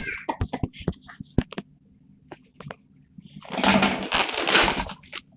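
Packaging being handled and opened: a few light clicks and taps, then about a second and a half of loud rustling and crinkling.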